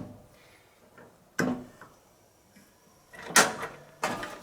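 Sharp knocks and clacks of a grill being handled as it is readied to light: one about a second and a half in, then several close together near the end.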